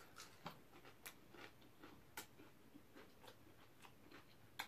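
Near silence with faint, irregular small clicks of someone eating: mouth sounds of chewing roasted sweet potato and kimchi, and light chopstick taps.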